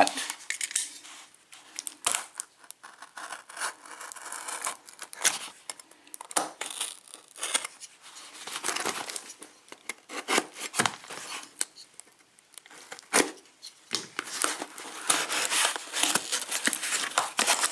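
A cardboard shipping box being opened by hand: packaging tearing and crinkling in irregular scrapes and rustles, busiest near the end.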